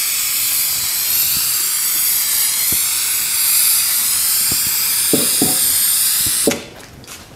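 Aerosol can of spray adhesive hissing in one long steady spray, cutting off suddenly about six and a half seconds in.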